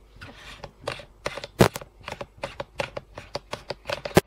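A 0.4x semi-fisheye adapter lens being unscrewed and pulled off a camcorder by hand: an irregular run of sharp clicks, ticks and scrapes from the threads and fingers on the lens barrel, a few a second.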